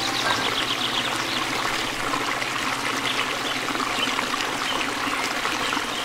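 Waterfall cascading over rock: a steady rush of falling and splashing water.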